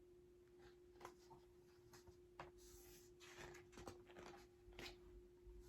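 Near silence with faint paper rustles and a few small clicks as a picture book's pages are handled and turned, over a faint steady hum.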